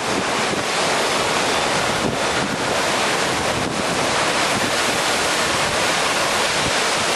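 Hurricane-force wind blowing hard and steady at landfall, buffeting the microphone in a dense, unbroken rush.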